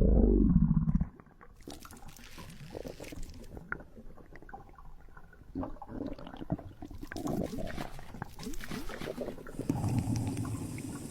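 A loud, low burp trailing off in the first second, then quieter, irregular wet gurgling and sloshing like stomach rumbles for the rest.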